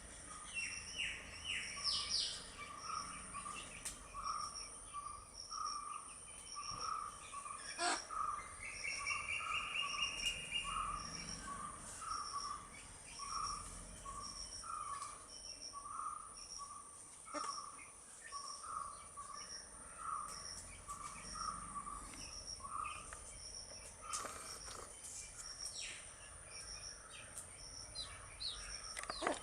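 Chicks peeping in short, high, falling notes over a steady chorus of insects. A softer chirping call repeats about once every second behind them, and a quick run of high notes comes about ten seconds in.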